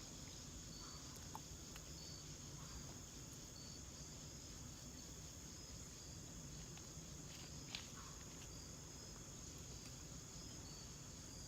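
Faint insect chorus: a steady high hum of crickets with short chirps repeating about once a second. A single small click about three-quarters of the way through.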